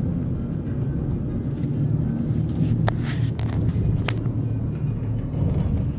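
Steady low rumble of a moving road vehicle heard from inside, engine and tyre noise, with a few sharp clicks around the middle.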